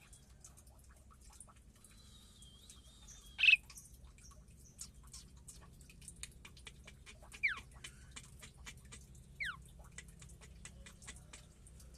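Caged birds in an aviary calling: one loud short call about three and a half seconds in, then two quick falling whistles about two seconds apart, with faint scattered clicking between them.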